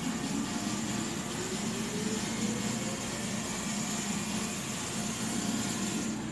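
Steady mechanical background noise: a low hum with a hiss over it. A faint tone rises in pitch from about one to two and a half seconds in.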